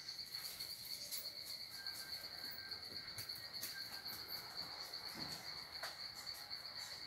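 Steady high-pitched insect trill with no break, with a few faint scattered clicks.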